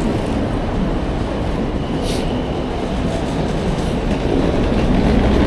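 Wheels of several rolling suitcases rumbling steadily over a hard floor as they are pulled along.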